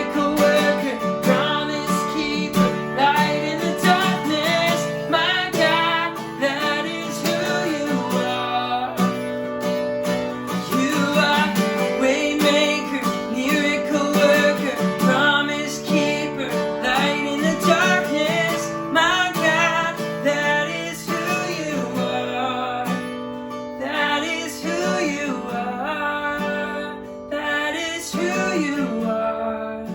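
Worship-band music in an instrumental passage, led by strummed acoustic guitar.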